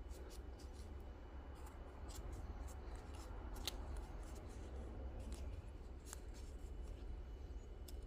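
Dried pandanus leaf strips crackling and rustling faintly as they are pulled tight by hand, with scattered small clicks.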